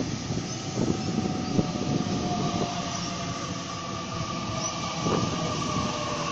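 Sydney Trains double-deck electric train running past, the rumble of its wheels on the track with a faint steady whine over it.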